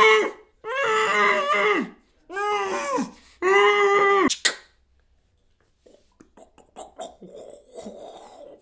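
A man's voice making four drawn-out wordless vocal sounds with bending pitch, the last ending in a sharp click about four seconds in. After a second of silence come faint clicks and rustling.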